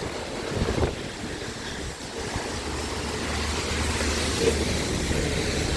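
Strong wind buffeting the microphone over a low engine rumble from passing vehicles, the rumble growing louder and steadier about halfway through.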